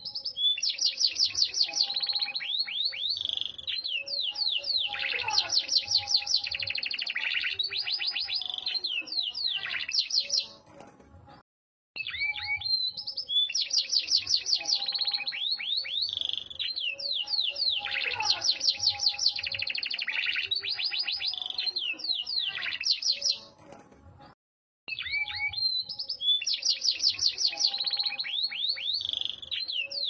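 Yorkshire canary singing: long songs of rapid trills, chirps and whistles, each about ten seconds long, broken twice by short pauses.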